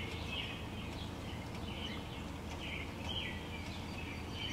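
Small birds chirping faintly, short chirps about once or twice a second, over a low steady hum.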